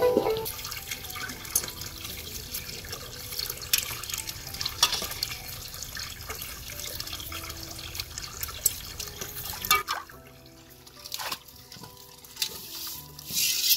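Water running steadily from a pipe spout and splashing onto stones, with small sharp clicks and scrapes from knives peeling potatoes. About ten seconds in, the running water drops away and only quieter scraping and handling sounds remain.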